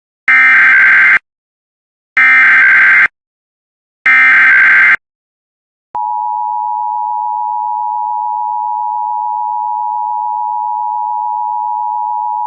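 Emergency Alert System alert opening: three one-second bursts of SAME header data tones, about two seconds apart, then about six seconds in the steady two-tone EAS attention signal (853 and 960 Hz together) starts and holds.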